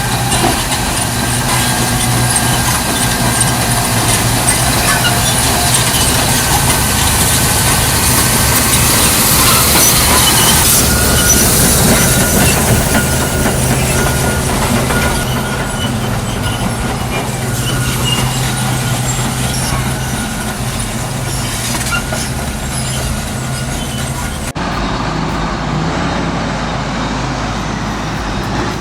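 Caterpillar D11 crawler bulldozer working: its diesel engine runs steadily under the squeal and clank of its steel tracks. The sound changes abruptly about three-quarters of the way through.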